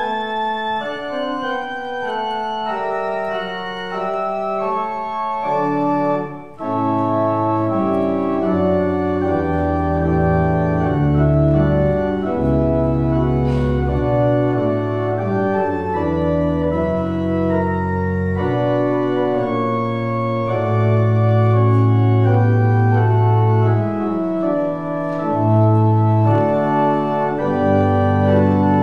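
Church organ playing a slow piece in long held chords. About six seconds in the music breaks off for a moment, then resumes with deep bass notes sounding under the chords.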